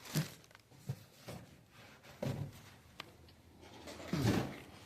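Handling noises from moving an electric fireplace unit and phone about: a few soft knocks and rustles, with one sharp click about three seconds in.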